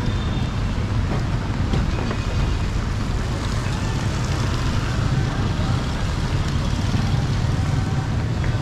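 Steady street noise: a continuous low rumble of passing traffic.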